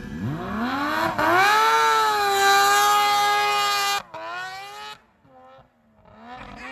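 Two-stroke triple snowmobile engine revved hard from low to a high, steady wail that is held for a couple of seconds and then cut off abruptly. After a short lull, fainter engine revs rise again near the end.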